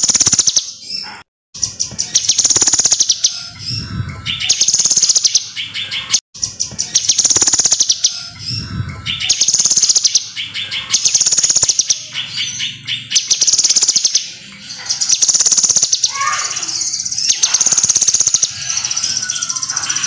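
A caged kinoi, a small leafbird, singing hard in a rapid, high trilling phrase about a second long, repeated over and over with short breaks between.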